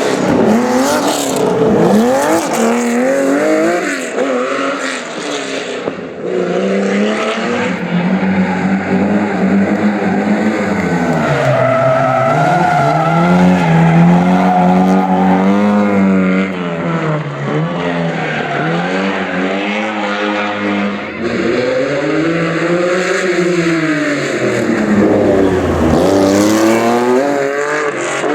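Rally car engines revving hard, their pitch climbing and dropping over and over as the cars slide sideways, with tyre squeal.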